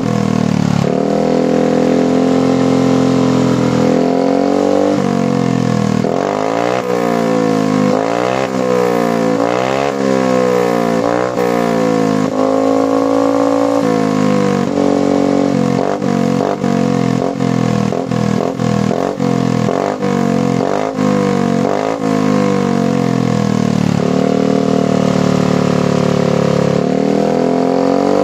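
Yamaha NMAX scooter's single-cylinder engine, breathing through an aftermarket BEST3 replica exhaust, being revved on the stand with the rear wheel spinning. It is held at high revs for a few seconds, then blipped up and down in quick succession, then held high again, with more quick blips near the end.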